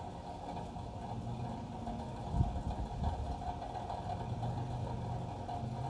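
Steady low mechanical hum, with one brief thump about two and a half seconds in.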